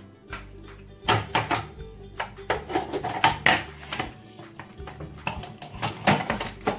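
Metal spoon tapping and scraping against a plate as mashed potato goes into a plastic food processor bowl, then the clear plastic lid and pusher knocking and clicking into place: a quick run of sharp clicks and knocks, over background music.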